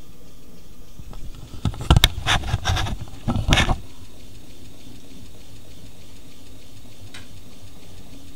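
Electric hub-motor wheel, powered from supercapacitors, spinning with a steady low running hum. About two to three and a half seconds in, a cluster of loud scraping knocks cuts in over it, and a single light click comes near the end.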